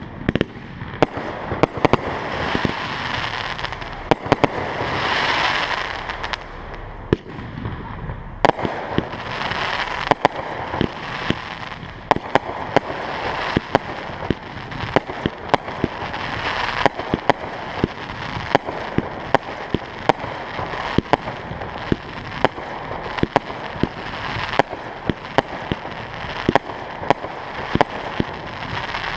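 Fireworks display: aerial shells bursting overhead in quick, irregular succession, dozens of sharp bangs, a few each second, over a continuous noisy wash.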